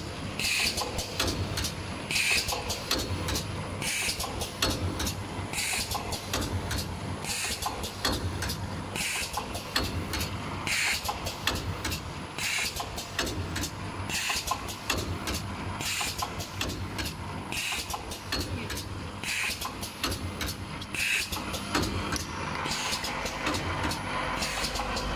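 Automatic glue-bottle filling and capping machinery running, with a steady hum, scattered clicks and a short pneumatic air hiss about every second and a half to two seconds. Near the end this changes to a denser, even rattle of the vibratory bowl feeder sorting nozzle tips.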